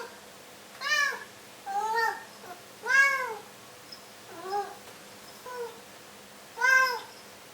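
Domestic cat meowing over and over, about six meows roughly a second apart, each rising and falling in pitch; two in the middle are fainter.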